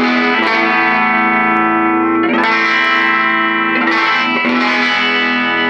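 Fender Stratocaster electric guitar played through a Mojotone 5F1 Champ kit amp, a copy of the 1959 tweed Fender Champ with a single 6V6 output valve and an 8-inch speaker. Chords are strummed and left to ring, with fresh strums about two and four seconds in.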